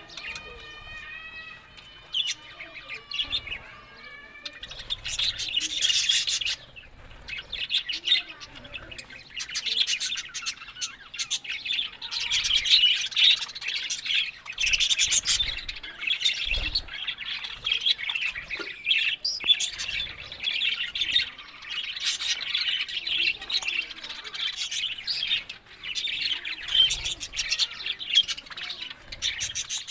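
Budgerigars chirping and warbling in quick, continuous chatter, with sharper squawks mixed in.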